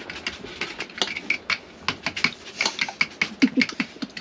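Eggs being beaten by hand in a ceramic bowl, the utensil clicking rapidly and evenly against the bowl, about six clicks a second.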